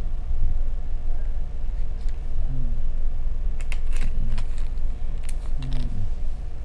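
Steady low hum and rumble, with a few light clicks in the second half and brief faint low murmurs.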